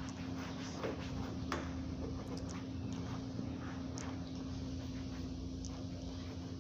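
A few faint clicks and taps from handling the wiper arms and plastic windshield cowl trim, with some cloth rubbing, over a steady low hum.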